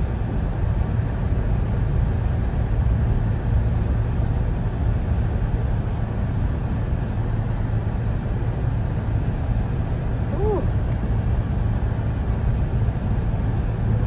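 Steady running noise heard inside a moving car's cabin: engine and tyres on a snow-covered road, with a low rumble.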